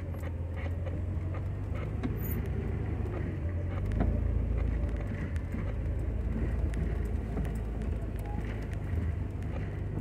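Off-road vehicle driving slowly over a rough dirt trail, heard from inside: a steady low engine and drivetrain rumble with tire and road noise, and small knocks and rattles as it goes over bumps. The rumble grows louder about four seconds in, then eases again.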